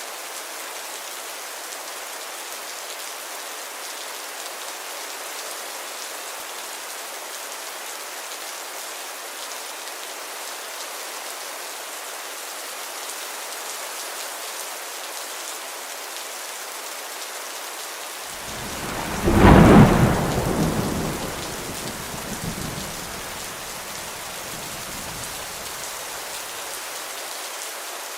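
Heavy rain falling steadily in a dense hiss; about two-thirds of the way through, a thunderclap breaks in with a deep rumble that peaks within a couple of seconds, then dies away over several seconds while the rain goes on.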